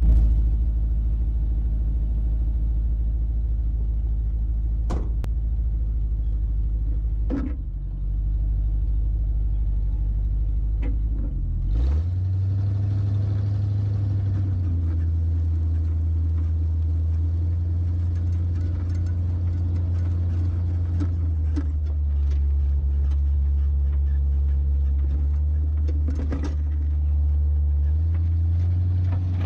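Tow truck's engine running as it drives over a rough dirt track: a low, steady drone whose note steps up about twelve seconds in, with a few sharp knocks from the bumps.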